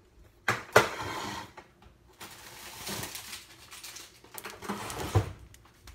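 Rustling and handling noises close to the microphone, in three rough bursts with sharp starts: the first about half a second in, the next about two seconds in, the last about four and a half seconds in.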